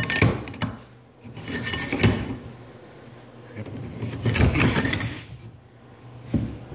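Metal clinking and rattling in three short bouts as the steel handle sections and threaded collar of a Li'Jo utility shovel are handled and unscrewed.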